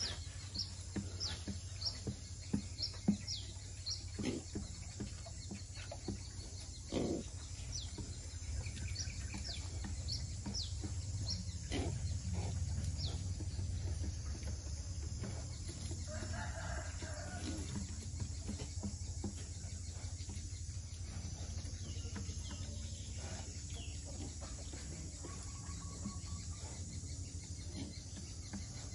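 Farm animal sounds: short high chirps and sharp clicks through the first dozen seconds, then one drawn-out call about sixteen seconds in, over a steady low hum.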